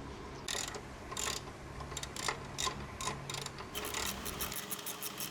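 Ratchet wrench clicking in short, uneven runs while the motorcycle's front fork pinch bolts are loosened.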